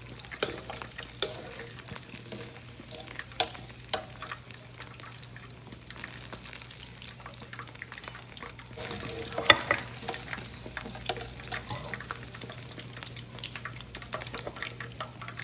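Ripe plantain pieces deep-frying in hot oil: a steady sizzle with scattered sharp pops and taps as the golden pieces are lifted out with a wire skimmer, the loudest a little past halfway.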